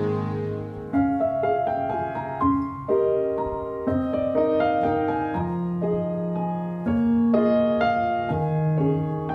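Piano playing a slow, gentle instrumental passage of a ballad accompaniment, single notes and chords struck every half second or so and left to ring.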